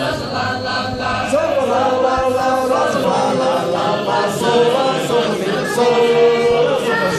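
Mixed group of men's and women's voices singing a cappella in full harmony from tunebooks, with long held notes.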